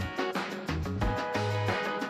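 Instrumental background music with a steady beat: percussion over a moving bass line and sustained instrument notes.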